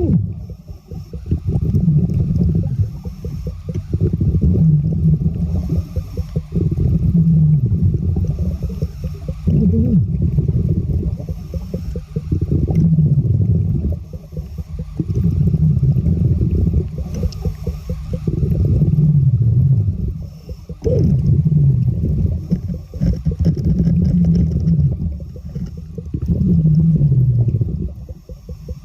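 A diver breathing underwater: exhaled bubbles rumble and gurgle in low, falling tones, with a faint regulator hiss on each breath. The breaths swell and fade in a steady cycle about every three seconds.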